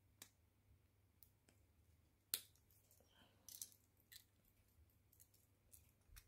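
Faint, scattered metallic clicks and taps from a stainless steel multitool and a Swiss Army knife being handled and held against each other. The sharpest click comes a little past two seconds in.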